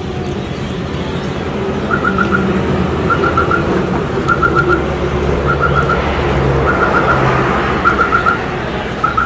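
Busy street noise with a vehicle engine running low underneath, and a repeating high chirp: quick groups of four short pips about every second and a quarter, starting about two seconds in.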